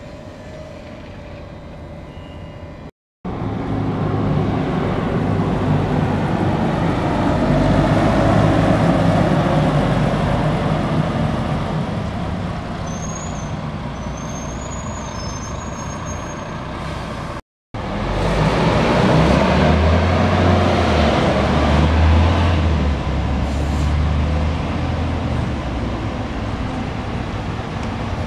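City buses driving by and pulling in to a stop: engines running with tyre and road noise, loudest about eight seconds in and again as a bus draws up near the stop. The sound breaks off briefly twice where the recording is cut.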